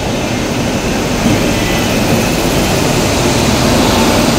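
Indian Railways electric locomotive passing close by at speed: a loud, steady rushing drone of the engine and its wheels on the rails, with a faint steady whine on top.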